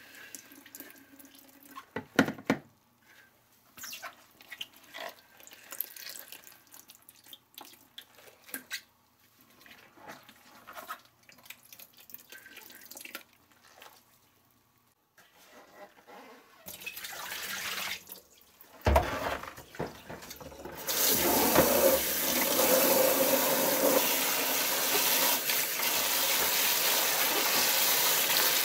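Salted napa cabbage lifted dripping out of its brine in a plastic pickling bucket, with scattered drips and wet squelches. Past the middle there is a rush of water and a thump, then a kitchen tap runs hard into the bucket in a stainless sink for the last several seconds, the loudest part.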